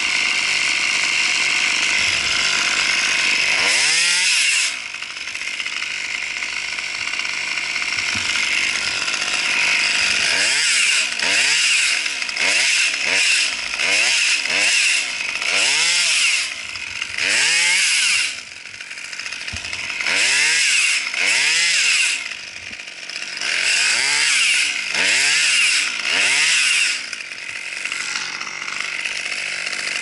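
Husqvarna T540 XP two-stroke top-handle chainsaw running at full throttle, then dropping to idle about four seconds in. It is then revved again and again in about a dozen short bursts, each rising and falling in pitch, before settling back to idle near the end.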